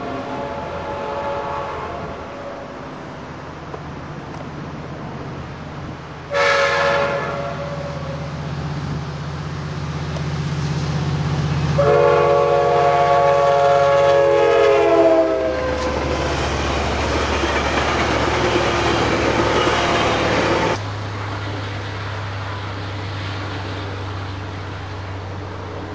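Coaster commuter train's F59PHI diesel locomotive sounding its Nathan K5LA chime horn as it approaches: a faint chord at first, a short blast about six seconds in, then a long loud blast for about three seconds, over the steady low rumble of the engine. After the horn the locomotive and cars pass with a rushing clatter of wheels that cuts off suddenly about 21 seconds in, leaving a lower steady hum.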